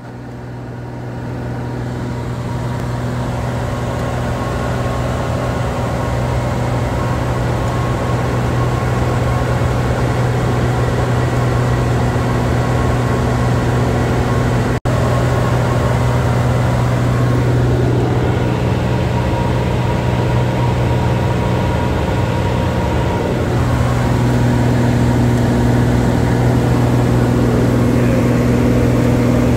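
Single-engine Cessna's piston engine and propeller droning steadily, heard from inside the cabin in flight. It swells in over the first couple of seconds and breaks off for an instant about halfway through.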